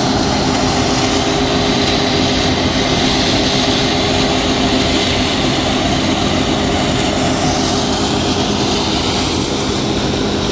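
John Deere 1065 combine harvester running steadily at working speed, its engine and threshing machinery giving a constant loud hum and rumble.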